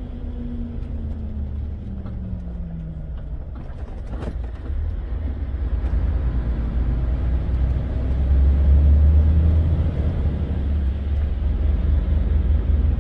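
Volvo FH truck's diesel engine heard from inside the cab: its pitch falls over the first few seconds as the truck slows, then it grows louder from about five seconds in as the truck pulls away under load. A single sharp click sounds about four seconds in.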